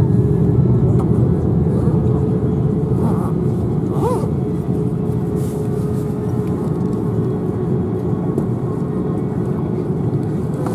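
Cabin noise of an Airbus A330-300 taxiing: a steady low rumble with a steady whine from the engines at taxi power.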